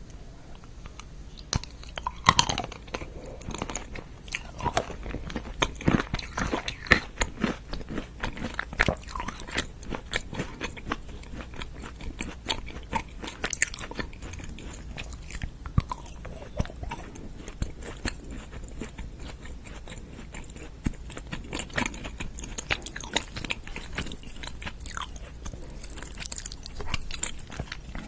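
Close-miked eating: a person biting and chewing food, with many irregular sharp crunches and wet chewing sounds.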